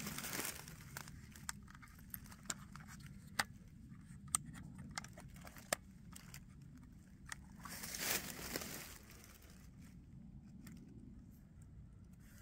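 A trail camera being handled and switched on: scattered small clicks of its case and buttons, with a brief rustle about eight seconds in.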